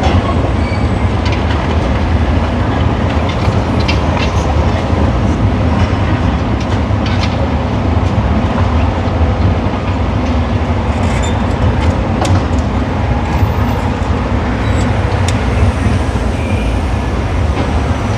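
Heavy demolition machinery running with a steady low rumble, with scattered sharp knocks and clanks of material being broken and moved.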